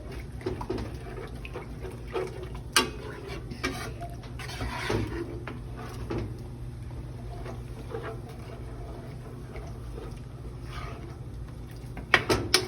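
Scattered light clicks, knocks and wet rustles of seafood and utensils being handled and mixed, over a steady low hum; a sharper knock about three seconds in and a few more near the end.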